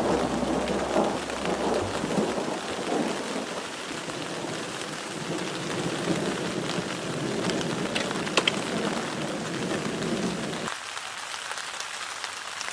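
Steady heavy rain with thunder rumbling through it. The rumble stops abruptly about two seconds before the end, leaving only the rain's hiss, and a few sharper drip taps come about eight seconds in.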